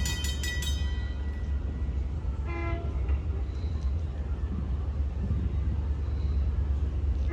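Train horn sounding and cutting off about a second in, then a short toot about two and a half seconds in, over the steady low rumble of a train.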